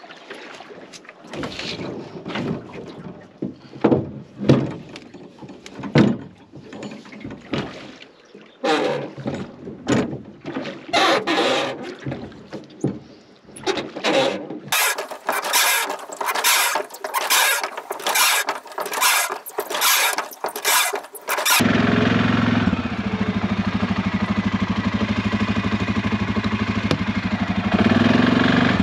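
Knocks and scrapes, then a boat motor turns over in fast, even strokes for several seconds. It catches about 22 seconds in and runs steadily.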